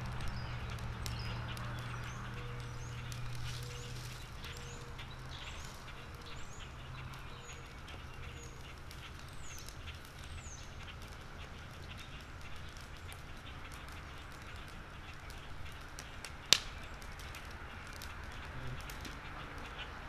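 Small birds chirping in short high calls, with a lower note repeating about once a second for a while, over a steady low hum. One sharp click comes about sixteen and a half seconds in.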